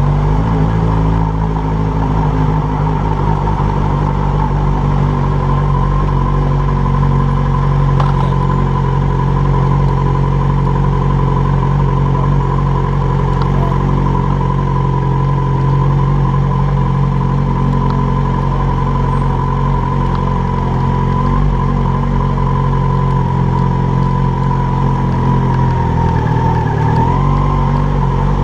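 Yamaha motorcycle engine running at a steady, low road speed in slow town riding, with a thin steady whine above it and road noise underneath.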